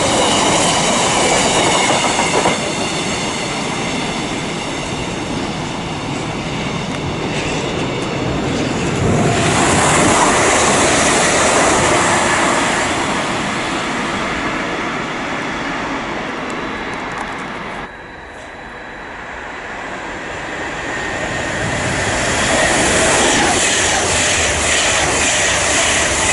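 Trains running through a main-line station. The sound eases a few seconds in, swells again around ten seconds, drops sharply about eighteen seconds in, then builds back up near the end.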